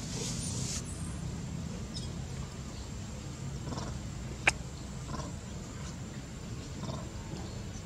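A long-tailed macaque making a few faint, short grunting calls over a steady low rumble, with one sharp click about halfway through.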